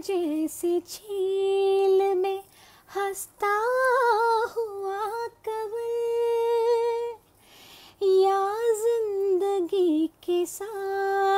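A woman singing a Hindi song solo with no accompaniment: slow, long held notes with wavering ornaments, and a short pause for breath about two-thirds in.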